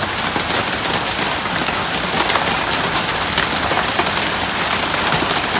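Large hailstones and heavy rain pelting down, a dense, steady clatter of many small hard impacts.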